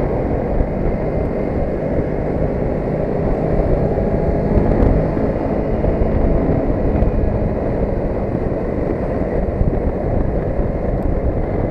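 Motorcycle engine running at a steady cruise with wind noise on the microphone, under a low road rumble.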